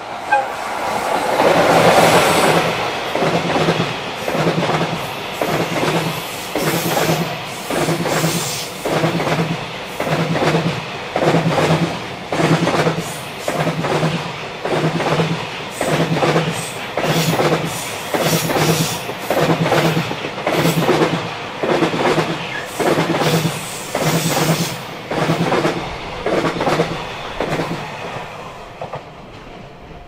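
Electric locomotive and long container freight train passing close by, the loudest part as the locomotive goes past about two seconds in, then the wagons' wheels clacking over rail joints in a steady repeating rhythm. The clacking fades near the end as the last wagons go by.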